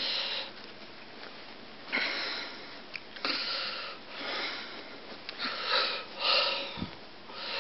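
A man breathing audibly through his nose: several short, noisy breaths a second or two apart.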